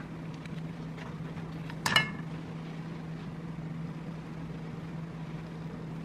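A steady low hum, with faint rustling of parchment paper as prosciutto is wrapped around brie, and one sharp ringing clink about two seconds in.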